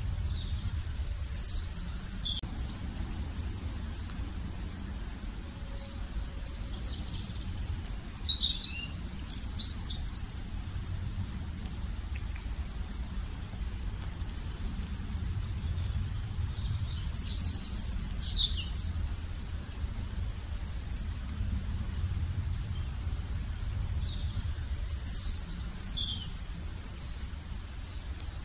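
Songbirds singing in short, bright, quickly gliding phrases that come in bursts roughly every eight seconds, the loudest about nine to ten seconds in. A steady low rumble runs underneath.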